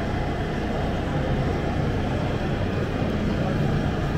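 Steady background din of an exhibition hall: a continuous low drone with no distinct events.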